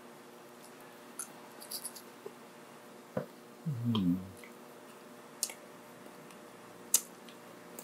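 Close-miked eating: scattered wet mouth clicks and smacks, with a brief low hum about four seconds in.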